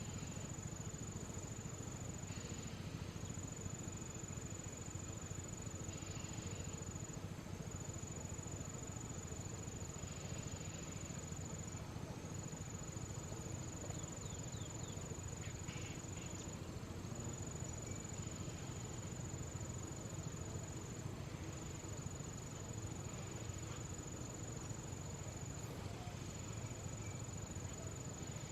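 Insects calling in the forest: a steady high-pitched trill that dips briefly about every second and a half, with fainter calls pulsing every few seconds, over a steady low background noise.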